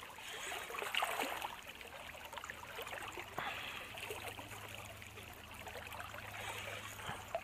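Shallow river current rippling and gurgling steadily, with a few faint ticks.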